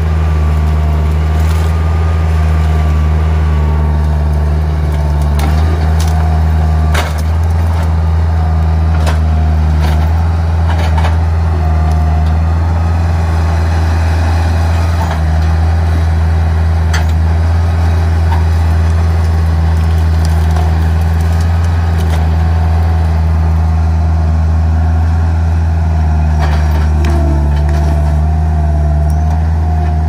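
Bobcat skid-steer loader's engine running steadily under load, with a wavering whine above it. Sharp knocks come now and then as the forks work the brush and stumps.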